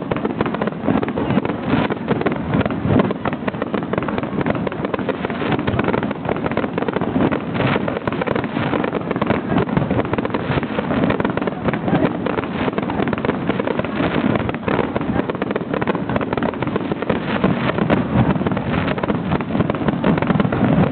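A dense barrage of fireworks bursting in rapid succession during the finale, the many bangs and crackles running together into a continuous rumble.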